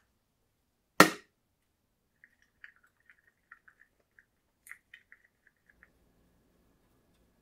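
A single sharp knock of hard plastic about a second in, then a run of faint, light ticks and scrapes as a wooden stick stirs epoxy gelcoat in a plastic cup.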